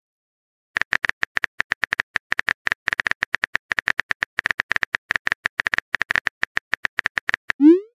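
Rapid run of simulated phone-keyboard typing clicks from a texting-story app, as the next message is typed. It ends in a short tone rising in pitch, the message-sent sound.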